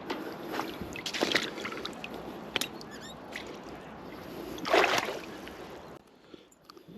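Water splashing and sloshing in a few uneven bursts, the loudest about five seconds in; it drops away to a much quieter background about a second before the end.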